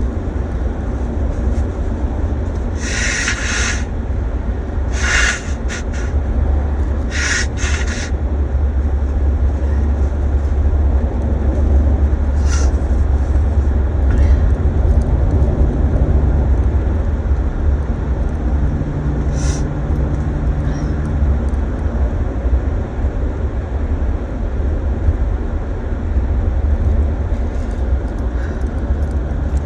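Car driving, heard from inside the cabin: a steady low rumble of engine and road noise. A few short hissing bursts come in the first eight seconds, and once more about twenty seconds in.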